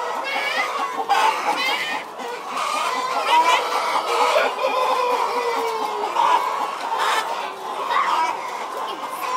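A large flock of chickens clucking and calling over one another in a steady, overlapping din.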